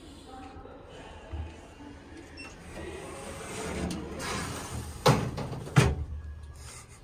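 Two loud, sharp knocks about two-thirds of a second apart, each with a short ring, after a rush of noise that builds over a couple of seconds, over a steady low hum.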